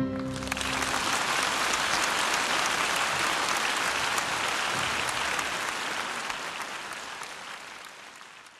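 Concert hall audience applauding, a dense, even clapping, with the last chord of the music dying away under it in the first second. The applause fades out toward the end.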